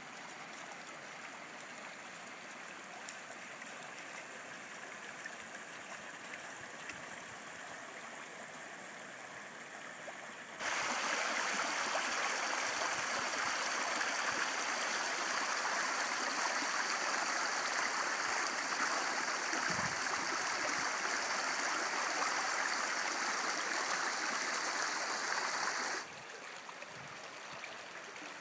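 Shallow rocky creek running over stones, a steady rush of water. About ten seconds in it jumps suddenly louder and stays so for about fifteen seconds, then drops back just as suddenly near the end.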